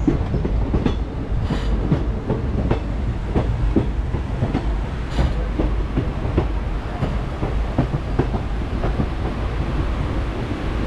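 Passenger train coach running on the track, heard at its open doorway: a steady low rumble of the wheels with irregular clicks and knocks as they pass over the rails.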